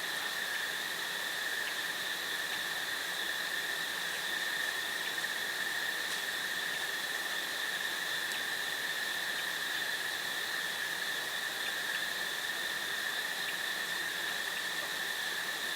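Crickets singing in a steady, unbroken chorus, one constant high trill with its overtone, over a soft hiss, with a few faint ticks.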